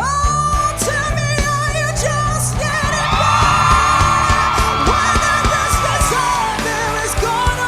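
A woman belting a long held high note with vibrato, starting with an upward scoop, over a live pop band. From about three seconds in, a mass of audience whoops and screams swells over the note for a few seconds.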